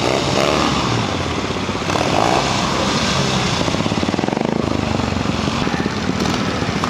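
Triumph TRW 500 cc side-valve twin trials motorcycle running at low revs with a rapid, even exhaust beat, the throttle opened and eased a couple of times.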